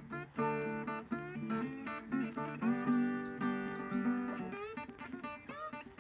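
Background music: acoustic guitar, plucked and strummed notes with some sliding pitches.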